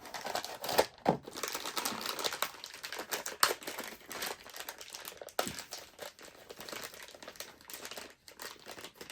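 Blind-box toy packaging being handled and opened: continuous crinkling and rustling, with many sharp clicks and taps throughout.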